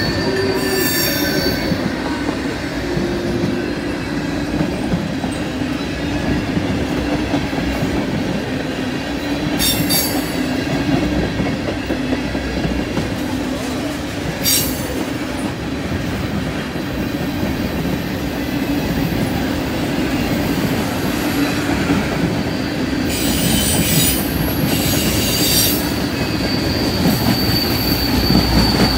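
Freight train of tank cars rolling steadily past: continuous rumble and clatter of wheels on rail. A high steady wheel squeal sounds near the start and again near the end, with a few short sharp squeals in between.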